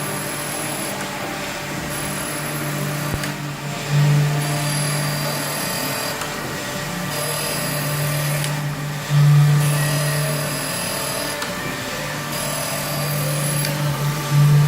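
Jacobsen surface grinder running: a steady motor hum, with a thin high grinding ring that comes and goes every two to three seconds and a brief louder swell about every five seconds.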